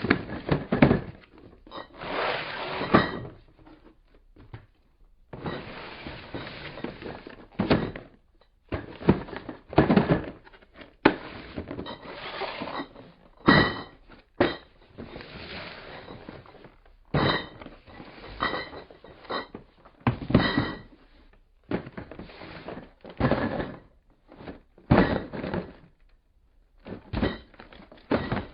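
Cardboard case of empty glass beer bottles being handled and jostled: repeated thuds of the box, with the bottles inside rattling and clinking together in irregular bursts of a second or two.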